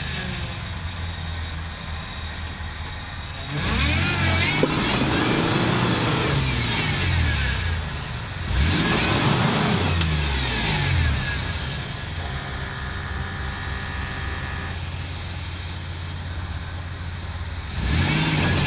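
Toyota Land Cruiser 90-series engine running near idle, then revved in three surges, its pitch rising and falling each time, as the vehicle strains in deep mud ruts on an off-road climb.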